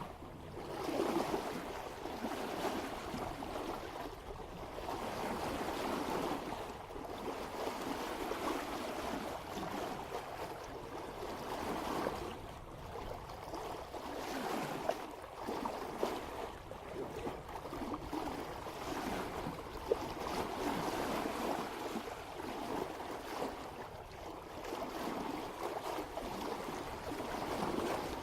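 Water rushing and splashing along a sailboat's bow as it sails at about 3 knots, swelling and easing every few seconds.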